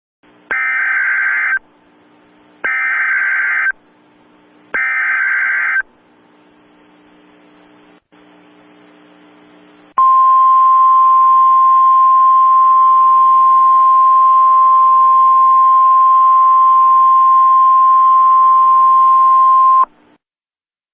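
Emergency Alert System SAME header: three one-second bursts of warbling digital data tones about a second apart, followed after a few seconds of faint radio hiss by the single steady 1050 Hz weather-radio alert tone lasting about ten seconds. The sequence announces a new alert, here a tornado emergency.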